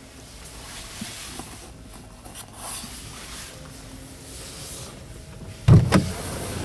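Soft handling rustle inside the Isuzu D-MAX's cab, then near the end the driver's door latch is pulled and the door unlatches with a loud double clunk, after which the outside noise is louder.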